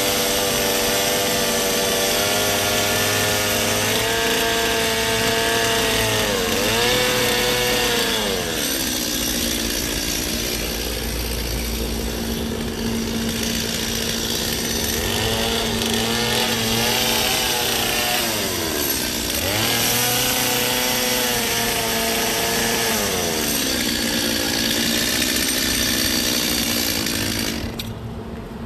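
Gas chainsaw running while carving ice. The engine pitch drops and climbs again several times as the throttle is eased and opened, and the sound falls away sharply near the end.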